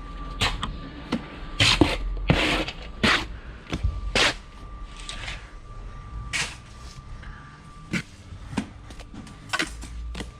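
Bricklaying tool sounds: a steel trowel knocking and scraping against concrete blocks and mortar, with irregular sharp clicks and a few longer scraping strokes. A faint steady tone runs underneath.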